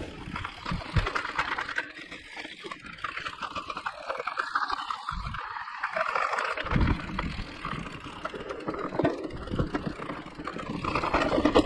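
Mountain bike rolling down a dirt trail: tyres on the ground with a steady rush and many small rattles and clicks from the bike.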